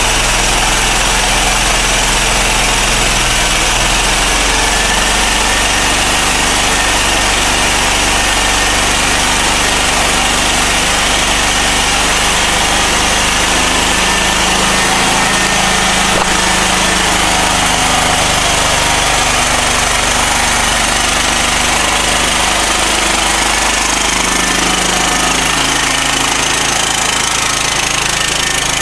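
A Predator 8750 portable generator's single-cylinder engine runs steadily on charcoal gas (carbon monoxide) from a charcoal gasifier. Its pitch shifts slightly a little past the middle.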